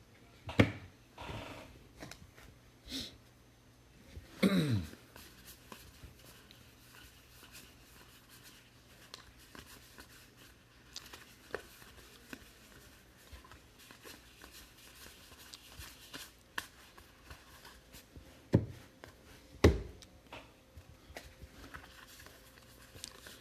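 Trading-card packs and cards being handled: scattered soft rustles and taps of wrappers and cards, with a few louder knocks, one about half a second in, one around four seconds in, and two close together near the end.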